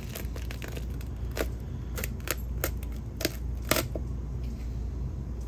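Thin plastic yogurt cup crackling and snapping, about half a dozen sharp clicks spread over a few seconds, as a slab of hardened epoxy is pulled free of it by the wooden stir stick set in it. A steady low hum runs underneath.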